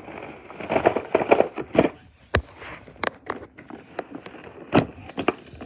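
Cardboard box being handled: rustling and scraping, with a few sharp taps and knocks.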